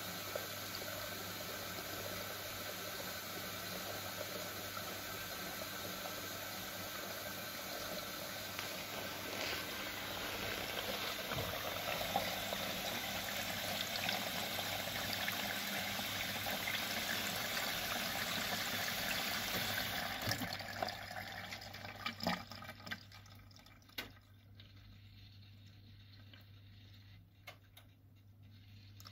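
Siemens Siwamat Perfecta SL washing machine taking in water, a steady rush of water flowing into the machine that stops about twenty seconds in, followed by a few clicks.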